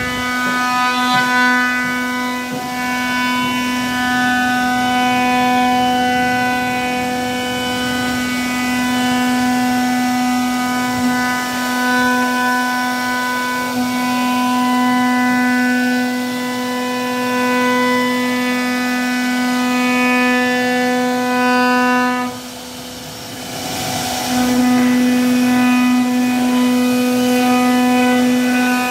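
CNC router spindle running at a steady whine while its bit cuts a raised-panel profile into a wooden board. Near the end the whine drops out for about two seconds, then returns at the same pitch.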